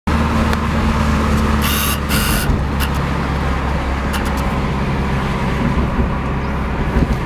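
Car driving, heard from inside the cabin: a steady low engine and road drone, with two short hisses about two seconds in.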